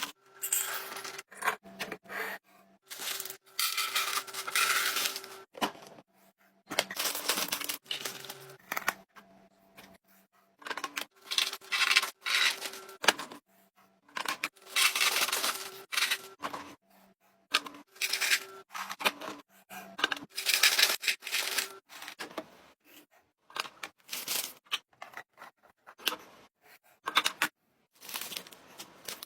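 Plastic packaging crinkling and rustling as groceries are unpacked, in bursts of a second or two, with short clicks and knocks of items and containers being set down between them.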